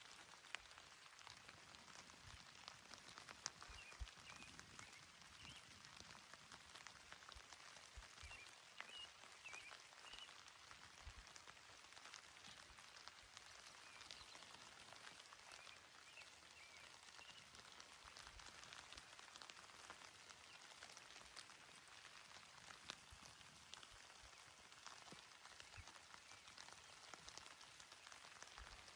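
Quiet, gentle rain falling on a grassy mountain meadow: a soft steady hiss with scattered drops ticking.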